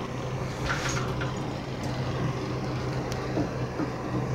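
Window air conditioner running with a steady low hum and hiss, with a few brief faint clicks and rustles about a second in and again around three seconds.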